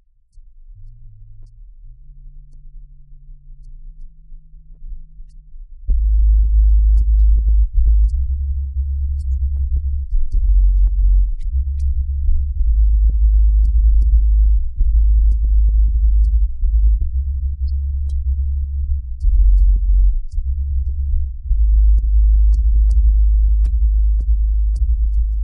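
Electronic background music: a soft low synth line stepping upward, then heavy bass and a beat kick in about six seconds in.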